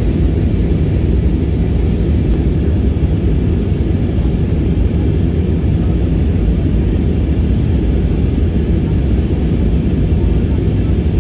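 Airbus A319 passenger cabin in flight: a steady, low rumble of engine and airflow noise heard through the cabin.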